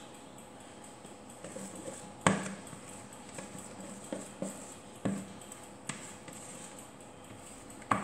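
Spatula scraping and knocking against a plastic mixing bowl as soft pizza dough is scraped out of it. There are about six sharp knocks, the loudest about two seconds in.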